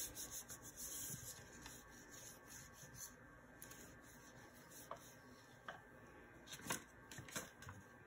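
Faint rubbing of a small acrylic roller and a hand over a sheet of paper laid on polymer clay, with a few light taps in the second half.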